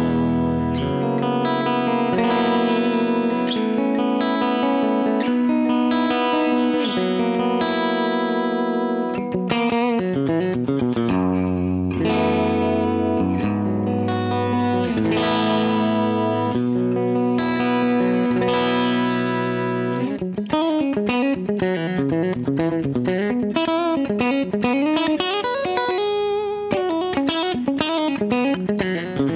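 Electric guitar played through a Line 6 POD X3 Live clean amp model, with EQ and a touch of reverb. It starts with sustained chords and notes, then moves to quicker melodic lead lines, with string bends and vibrato in the second half.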